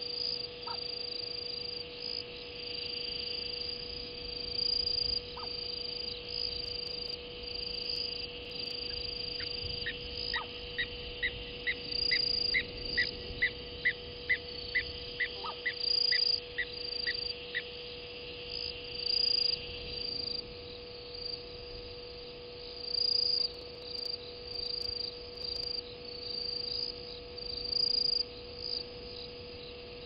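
Night chorus of crickets chirping steadily, over a steady electrical hum. From about ten seconds in, another calling animal adds a run of evenly spaced pulsed calls, about two a second, that stops some eight seconds later.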